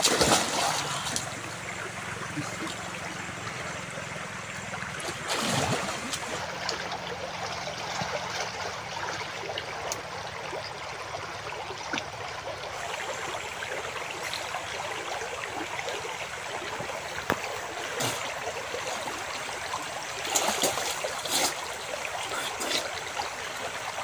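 Fast-flowing river water running steadily, with splashing as a person wades and swims through it, loudest right at the start, about five seconds in and around twenty seconds in.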